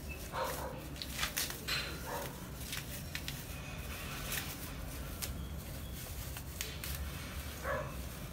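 Siamese kitten mewing in short calls, once near the start, again about two seconds in and once near the end, among scattered light clicks and scuffs.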